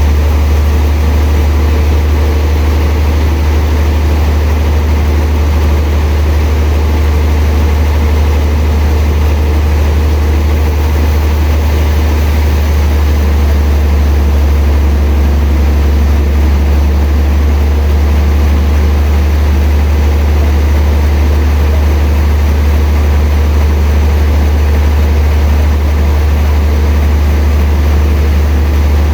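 Sawmill machinery running with a loud, steady low engine hum that does not change.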